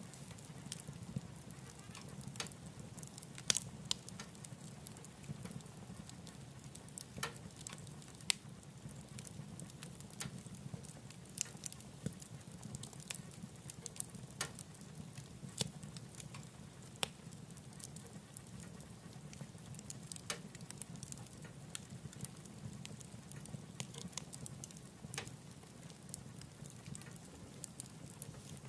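Wood burning in a wood stove, crackling with irregular sharp pops of varying loudness over a steady low rumble of the fire.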